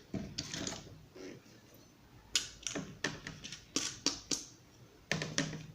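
Irregular light clicks and knocks of parts being handled while a ceiling-fan blade is fitted to its bracket with screws.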